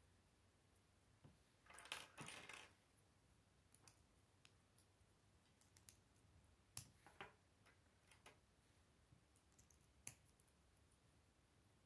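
Faint clicks of plastic K'nex connector pieces being handled and snapped together, a short clatter about two seconds in, then single clicks every second or two.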